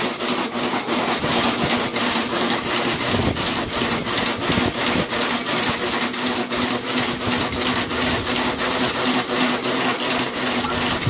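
Dog treadmill running under a sprinting dog: a steady rasping rumble with a faint even hum and a regular clatter about four times a second.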